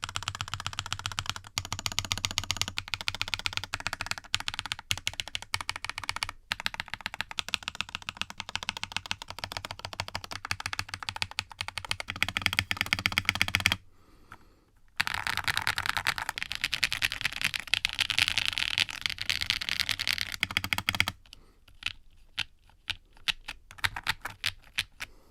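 Typing on a budget 60% mechanical keyboard with KTT Rose switches, gummy O-ring mounted on silicone cord stock with an FR4 half plate. Rapid, continuous keystrokes stop briefly about 14 seconds in, then resume, and near the end there are sparser single key presses.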